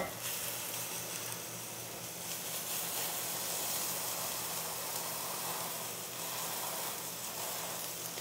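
Faint, steady sizzle of oyster mushrooms cooking in a cast iron skillet, pressed under a second cast iron pan. A light knock comes right at the start.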